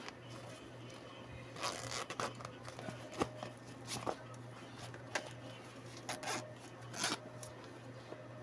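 Zippers on a canvas crossbody bag being pulled along their tracks, with the canvas rustling as it is handled, in a series of short separate strokes.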